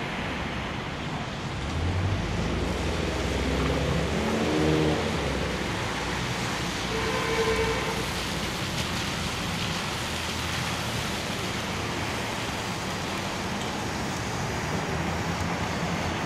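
Electric trolley bus moving off on a wet street, its motor whine rising in pitch about two to five seconds in, over a steady hiss of tyres on wet pavement and traffic.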